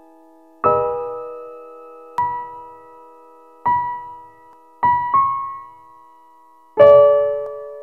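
Slow, gentle piano music: single notes and chords struck about every second or so, each left to ring and fade, with a fuller chord about a second in and another near the end.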